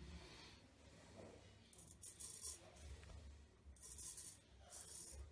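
Straight razor with a 7/8 N690 steel blade shaving lathered stubble: a few short, faint rasping scrapes, one per stroke, starting nearly two seconds in.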